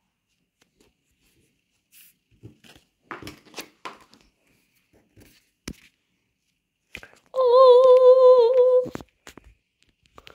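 A few light clicks and rustles of cards being handled, then, about seven seconds in, a person's voice humming one loud held note for about a second and a half, its pitch wavering.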